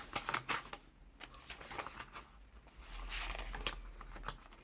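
Pages of a handmade paper junk journal being turned and handled: quick papery clicks and taps in the first second, then a longer soft rustle of paper near the end.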